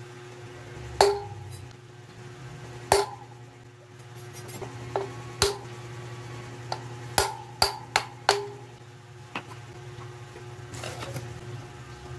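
Hammer striking a screwdriver used as a drift to knock the old wheel bearing out of a Honda TMX 155 motorcycle wheel hub. There are about ten sharp metallic blows, irregularly spaced, each with a short ring. They come faster in the middle of the stretch.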